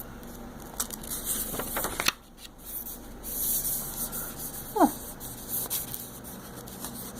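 Paper rustling and crinkling as a folded booklet is unfolded and its pages are handled, with a brief falling squeak about five seconds in.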